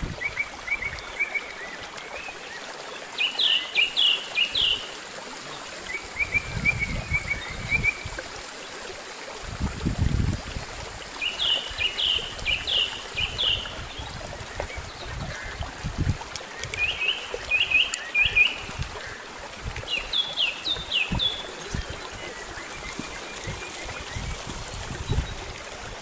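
Small mountain stream trickling and splashing over stones, with a songbird singing several short phrases of quick descending notes and a few softer trills in between. A few low thuds come up briefly, the strongest about ten seconds in.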